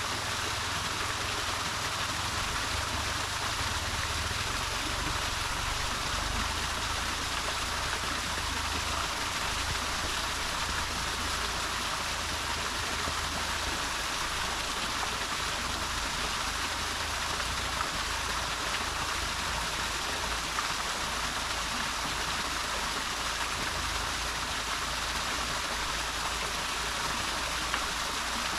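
Mountain stream water rushing steadily over rocks: an even, unbroken hiss.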